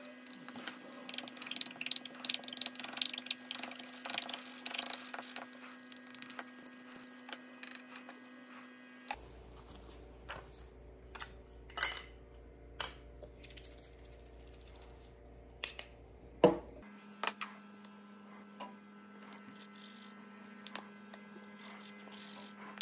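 A thin metal spatula scraping and ticking against the inside of a small metal make-up pan, in quick scratchy clicks for several seconds. This is followed by scattered light clicks and taps as small plastic press moulds are handled on the table.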